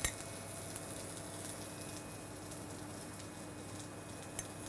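Quiet kitchen background: a steady low hum with a faint hiss, with a light click at the very start and another near the end.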